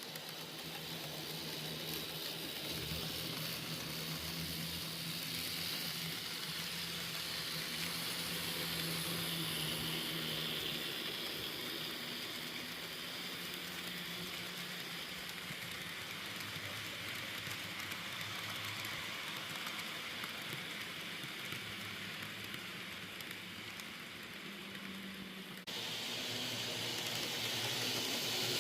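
Model train running along its track: a steady whirring, hissing roll of motor and wheels with a low hum under it, growing louder over the first several seconds, easing off, then jumping up abruptly near the end.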